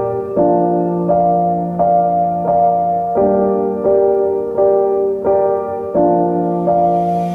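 Background music: a slow piano piece of sustained chords, with a new chord struck about every three-quarters of a second.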